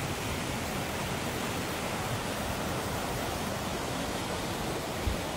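Steady rushing of a muddy flash flood pouring across open ground, with a brief low thump about five seconds in.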